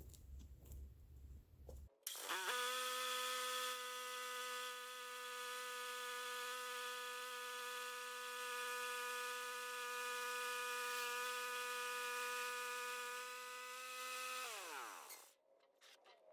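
Homemade band sawmill running up to speed with a rising whine, running steady with a high, even whine for about twelve seconds, then winding down with a falling whine, on a fresh, sharp blade.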